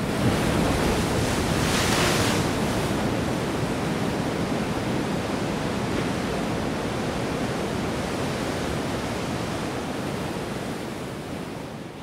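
Sea surf washing on the shore, with wind buffeting the microphone; a wave surges louder about two seconds in.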